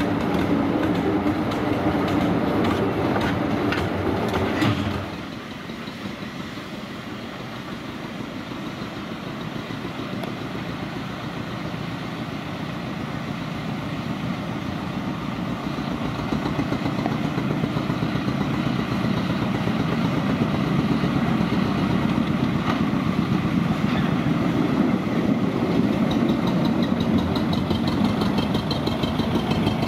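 Ruston narrow-gauge diesel locomotive running close by, breaking off abruptly about five seconds in; then a small narrow-gauge diesel locomotive's engine running steadily and growing louder as it approaches along the track.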